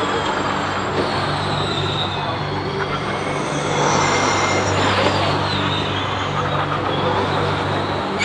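Formula E electric race cars driving past, their motors giving a high whine that slides down in pitch as each car goes by, over a steady low hum.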